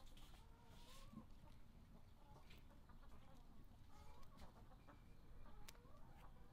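Faint clucking of chickens, with a few soft clicks as a knife cuts on a wooden board.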